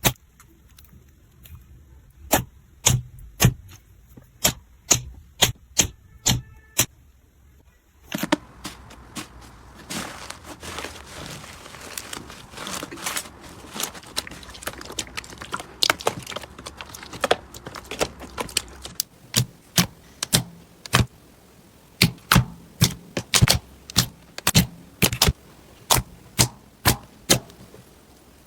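Slime being squished and popped by hand: a run of sharp crackling pops and clicks, sparse at first, then denser with a soft crackling hiss underneath from about eight seconds in.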